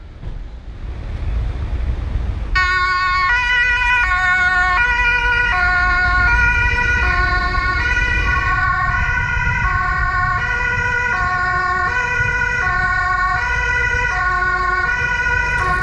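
Swiss police two-tone siren sounding on an emergency run. It comes in about two and a half seconds in and alternates high and low, each tone held for under a second, over the low rumble of the patrol car driving off.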